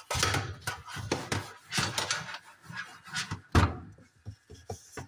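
Sponge scrubbing a metal mesh range-hood grease filter in a stainless steel sink, a quick run of scratchy rubbing strokes, with one louder knock about three and a half seconds in.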